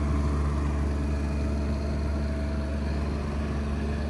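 Diesel engine on a motorhome running at a steady speed: an even, low hum.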